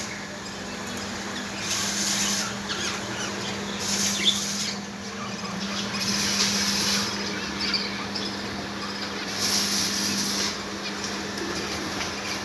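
Zebra finches making short, faint chirps, with repeated bursts of hiss about a second long and a steady low hum underneath.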